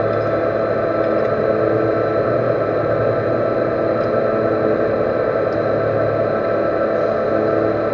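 Metal lathe running steadily, its motor and gearing giving a constant hum with several steady tones, as it turns a steel servo motor shaft.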